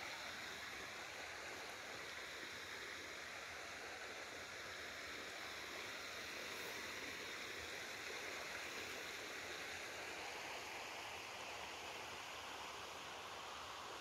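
Steady rush of running stream water, its hiss slowly shifting in tone.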